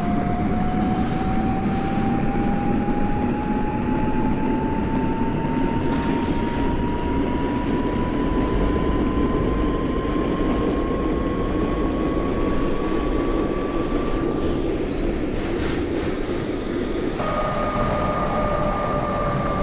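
A vehicle running with a steady rumble and a whine that climbs slowly in pitch for about fifteen seconds. Near the end the whine comes back higher, joined by a second, lower tone, and both sink slightly.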